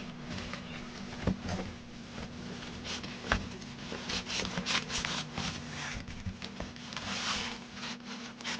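Packaging and parts being handled: irregular rubbing and rustling with a few light knocks, busiest in the second half.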